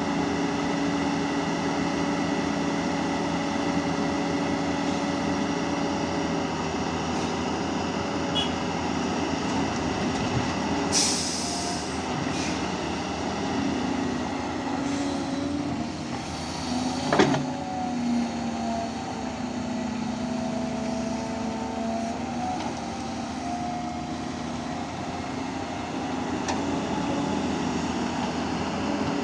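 Volvo construction machine's diesel engine running steadily, with a short hiss about eleven seconds in and a sharp metallic clank a few seconds later. After the clank, a wavering whine rides over the engine.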